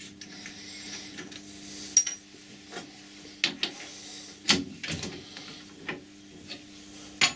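Metal clicks and knocks of a chuck key being fitted and turned in a lathe chuck and a small threaded brass part being taken out, a handful of separate sharp clicks over a steady low hum.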